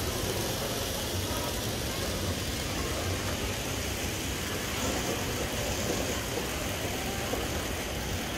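Steady background noise of a large exhibition hall: an even low rumble with hiss above it.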